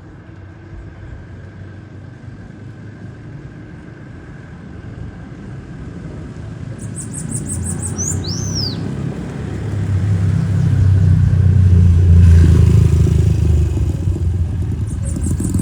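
A motor vehicle's engine rumble swelling as it passes, loudest about three-quarters of the way through and then easing off. Over it, a bananaquit sings twice, each time a quick run of high ticking notes ending in a high whistle that rises and falls.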